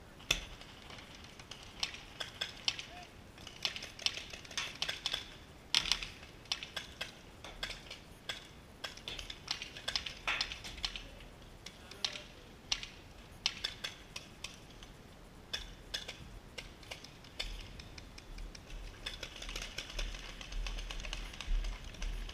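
Paintball markers firing across the field: irregular sharp pops, singly and in quick strings, with a denser run of shots near the end.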